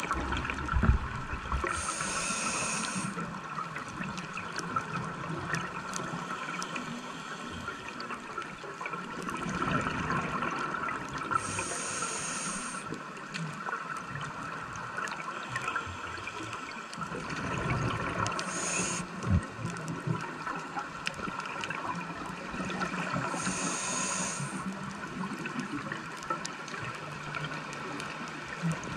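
Scuba breathing heard underwater through a camera housing: bubbling, gurgling exhaled air with a high hiss four times, several seconds apart, over a steady background with scattered faint clicks.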